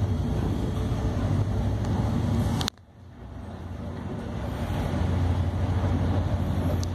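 Steady low drone of a tug's engines, with wind and sea noise as heavy seas break over the bow. About two and a half seconds in there is a sharp click, the sound cuts out suddenly, then fades back up over a couple of seconds.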